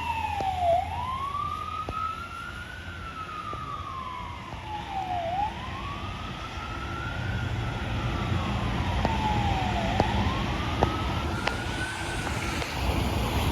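Emergency vehicle siren wailing in slow sweeps, its pitch falling and rising about once every four to five seconds and fading out near the end, over a low rumble of street traffic.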